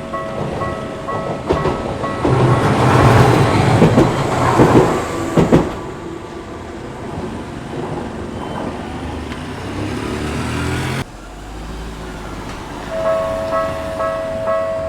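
A Tokyu Setagaya Line train passing over a level crossing: a loud rumble of wheels with sharp clacks over the rail joints, then a quieter faint rising motor whine as it moves away. After an abrupt cut, the level-crossing warning bell starts ringing again about 13 seconds in.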